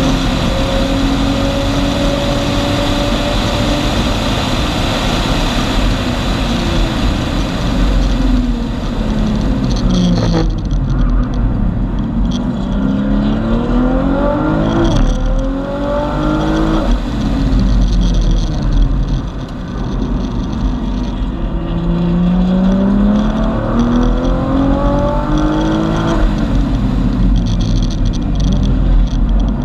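Tuned Nissan GT-R's twin-turbo V6, heard from inside the cabin, pulling hard on track. The engine note holds high and steady at first, falls away about eight to ten seconds in, then climbs several times with sudden drops at each gear change as the car accelerates out of the corners.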